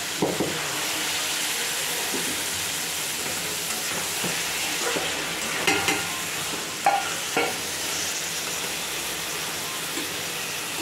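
Soya chunks and potatoes sizzling in oil and masala in a kadai, being fried down after a splash of water, while a spatula stirs and scrapes through them. A few sharper scrapes and knocks of the spatula stand out about halfway through.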